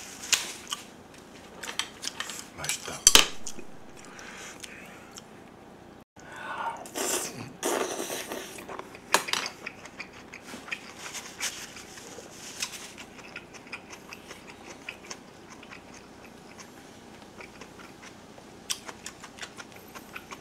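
Close-up eating sounds: chewing, with a spoon clicking and scraping against a metal lunch tin and pan, and a sharp clack about three seconds in as the loudest sound.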